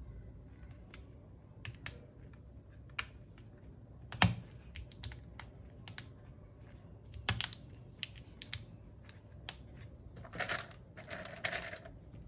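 Irregular plastic clicks and clacks from a mechanical keyboard being handled or pressed, one much louder clack about four seconds in, with two short rustling scrapes near the end.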